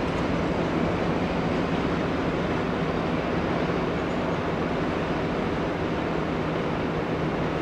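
Train running steadily: a low, even engine hum under a constant rushing noise.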